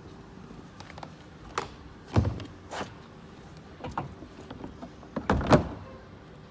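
Knocks and clunks from handling the water tank's fittings, about five or six separate hits with the loudest just after five seconds in.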